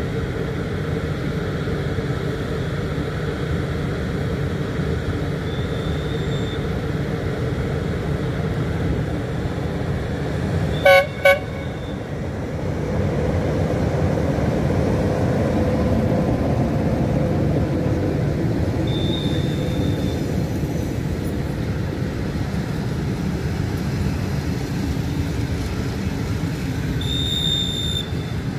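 Diesel locomotive hauling passenger coaches past. Its engine runs steadily and grows louder as it passes close, and its horn gives two short toots about eleven seconds in.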